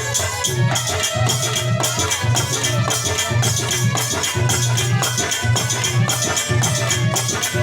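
Instrumental passage of a Hindi devotional song (bhajan): a steady, repeating drum beat with jingling hand percussion over it, and no singing.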